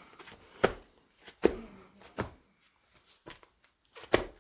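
Footsteps: a handful of separate steps, three in the first two and a half seconds and two more near the end.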